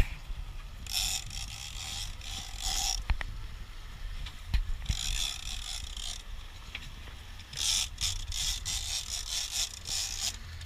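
Fishing reel being cranked in three spells, a rapid ratcheting clicking, over a steady low rumble from the boat.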